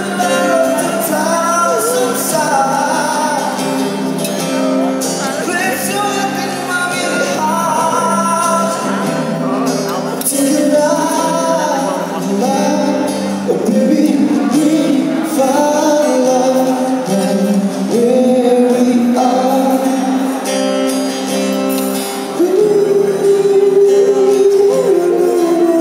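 Live acoustic band music: a man sings over a strummed acoustic guitar and a second, electric guitar. He holds a long note near the end.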